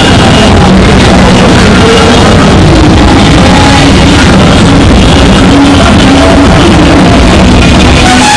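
Loud music playing continuously, with a wavering melody line over a dense backing.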